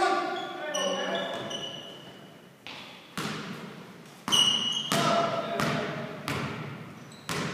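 Basketball dribbled on a hardwood gym floor: a string of irregular bounces, each ringing out in the echo of the large hall.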